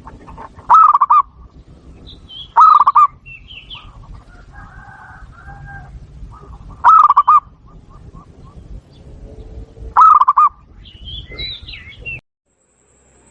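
Zebra dove (perkutut) cooing: four loud, short rolling coos, about a second in, near three seconds, about seven seconds and about ten seconds, with fainter high chirps of other birds between. The sound cuts out suddenly near the end.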